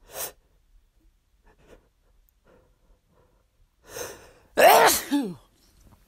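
A person sneezes once, strongly, about two-thirds of the way in: a sharp in-breath, then a sudden loud burst ending in a voiced sound that falls in pitch. Short breaths come before it.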